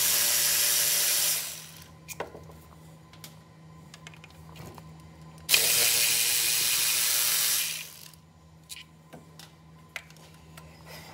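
Pneumatic ratchet running in two bursts of about two seconds each, with a hiss of air over the motor's whir as it turns bolts at the crankshaft end of a VW T6 2.0 TDI engine. Light clicks and taps of the tool and socket come between the bursts.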